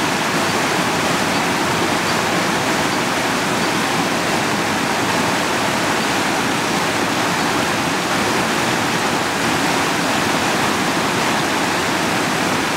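Creek water running steadily, a constant even rush that does not change.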